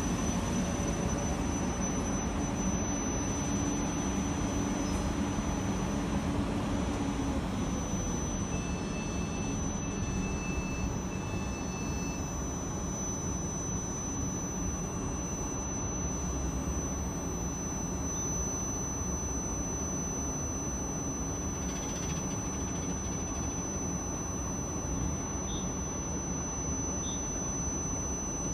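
South Western Railway electric multiple unit standing at the platform, its equipment humming steadily under a constant high whine. About nine seconds in, three short electronic beeps sound in a row.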